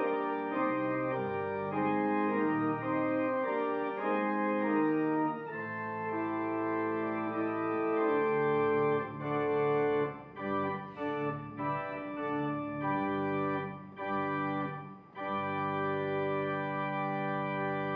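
Organ playing a closing postlude in held chords that change every second or so, with a few short breaks between phrases in the second half.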